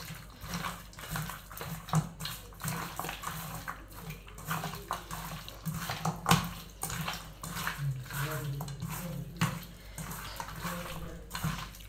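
Hands kneading raw pork pieces with ginger-garlic paste and salt in a metal bowl: irregular wet squelching and slapping of the meat, with occasional sharper knocks against the bowl.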